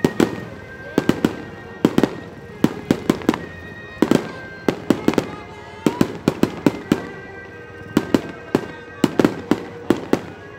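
Fireworks display: aerial shells launching and bursting in quick, irregular volleys of sharp bangs, several a second, with short pauses between clusters.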